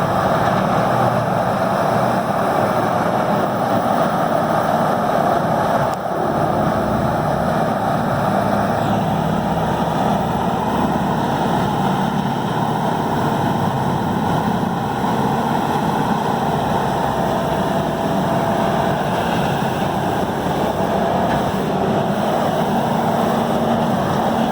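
A 1125 hp Peterson 5710D horizontal grinder running flat out under full load: a loud, steady mix of its big engine's drone and the grinding of material, with a brief dip about six seconds in.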